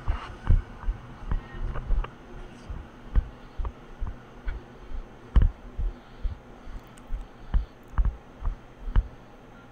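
A run of dull low thumps, irregular and roughly two a second, over a faint steady hum.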